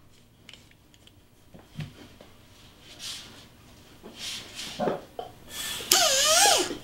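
Faint small metal clicks and handling as the Titan checkering head is screwed onto its handpiece, then near the end a louder wavering squeak lasting about a second.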